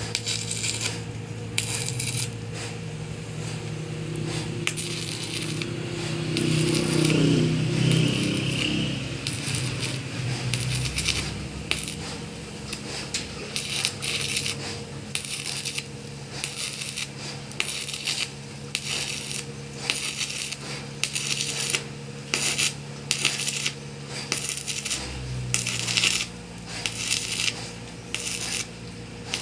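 Stick (arc) welding on a steel engine crossmember: the electrode arc crackles and sizzles in short bursts, striking and breaking off again and again, over a steady low hum. Near the end the bursts come about once a second.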